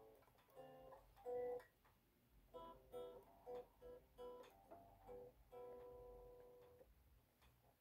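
Stratocaster-style solid-body electric guitar played quietly: a few chords, then a run of short picked chords about two a second, and near the end one chord left to ring and fade.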